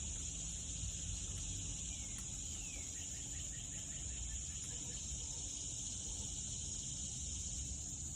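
A steady, high-pitched chorus of insects such as crickets, over a low rumble. About two to three seconds in comes a short falling chirp followed by a few quick ticks.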